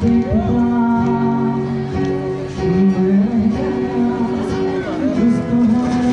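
Live acoustic guitar strummed as accompaniment, with a man singing a Bollywood song over it in long, held, sliding notes.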